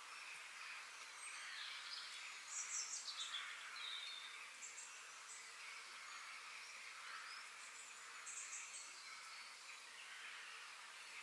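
Faint forest ambience: small birds chirping and singing over a steady background hiss. A burst of quick high chirps and a short falling trill about two and a half seconds in are the loudest part, with another burst of chirps about eight seconds in.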